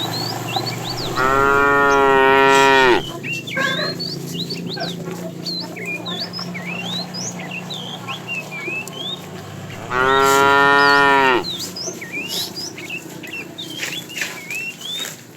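Cows mooing: two long moos, the first about a second in and the second about ten seconds in, each dropping in pitch as it ends, over constant high chirping.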